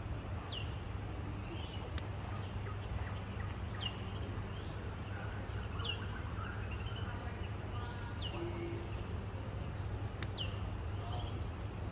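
Rainforest ambience: a steady high-pitched insect drone with a low rumble underneath, and a short falling call repeating about every two seconds.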